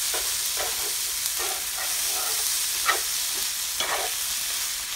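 Rice vermicelli and cubes of pig's blood being stir-fried with chopsticks in a hot nonstick pan: a steady sizzle with irregular stirring strokes as the noodles are tossed, two of them louder near the end.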